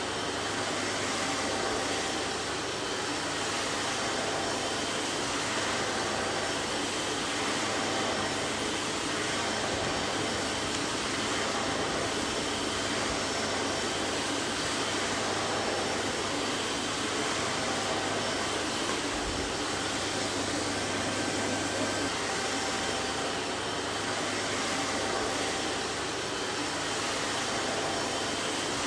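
Vacuum cleaner running steadily: an even rushing whoosh of air with a faint low hum and a few faint steady tones, no change in pitch or level.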